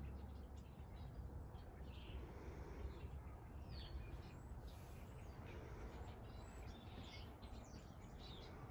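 Outdoor ambience: faint, scattered bird chirps over a low, steady background rumble.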